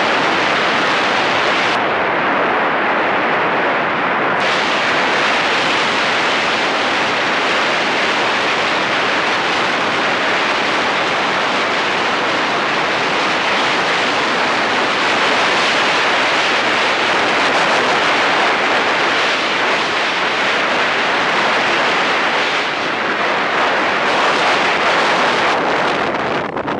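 Loud, steady wind rush buffeting the microphone of a land yacht sailing at speed.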